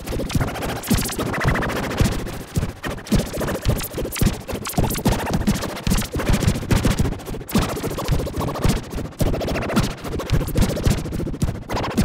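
Distorted electronic emergency-alert alarm sound: a dense stutter of crackling clicks over pitched tones that glide up and fall away again.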